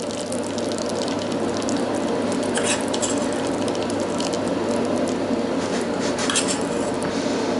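Butter sizzling in a small pan: a steady crackling hiss, with a couple of brief, sharper scrapes.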